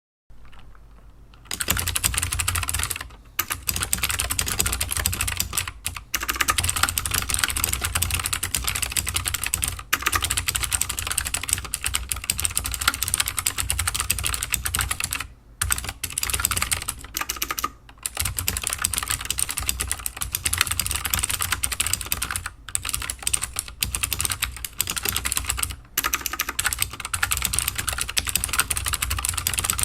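Fast continuous typing on a mechanical keyboard with clicky Gateron Blue switches (78 g springs), a dense run of sharp clicks and key strikes. It starts about a second and a half in, with a few short pauses.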